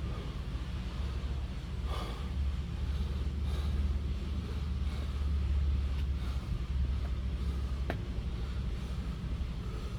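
A person breathing hard through a set of push-up burpees, faint under a steady low rumble. There are a couple of light taps about six and eight seconds in.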